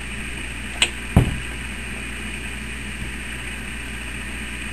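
A steady low hum, with a sharp click a little under a second in followed by a heavier knock.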